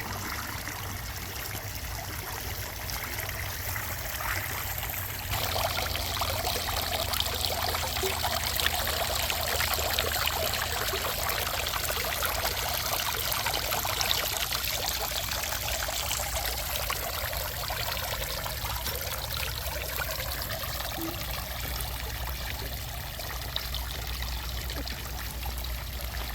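Water pouring and trickling down the tiers of a three-tiered cement fountain into its basins, a steady splashing flow that gets louder about five seconds in.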